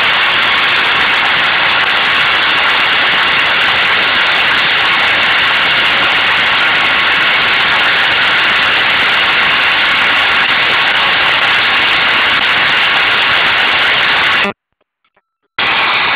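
CNC router spindle running steadily as it carves wood: a loud, even machine whine with faint steady high tones. It cuts out abruptly for about a second near the end, then starts again at the same level.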